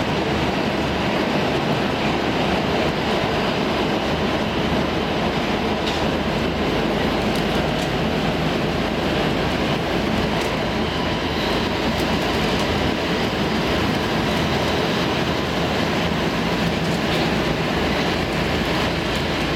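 Stockholm Metro C14 subway car running at steady speed, heard from inside the passenger car: an even rumble of wheels on rail, with a few faint clicks.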